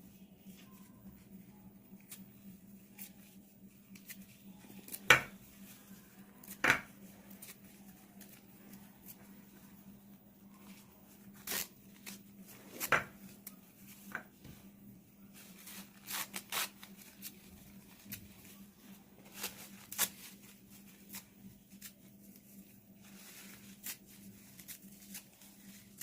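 Tissue paper being torn by hand into small pieces: soft, intermittent rips and rustles with scattered light clicks. Two sharp taps stand out about five and seven seconds in, over a steady low hum.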